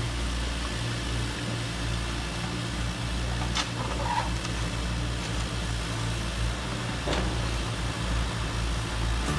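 Radio-controlled model construction machines running: a steady low engine-like hum, with a few short clicks.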